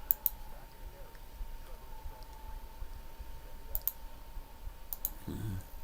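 Sharp clicks coming in quick pairs, three times, over a faint steady tone, with a brief voice sound near the end.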